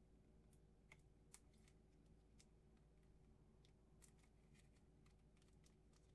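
Near silence: a steady low room hum with a scatter of faint, sharp clicks and ticks from a trading card being handled.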